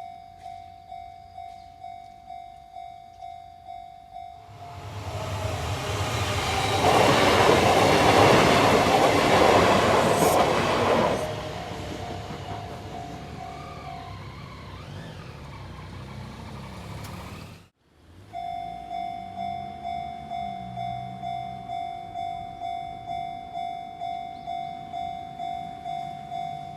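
Japanese level-crossing warning bell ringing in a fast repeating ding, about two strikes a second, as a Kintetsu Minami-Osaka Line electric train passes over the crossing. The train's noise swells over several seconds and drowns the bell, then fades to a low rumble. The sound cuts off abruptly about two-thirds of the way through, and the bell rings on again afterwards.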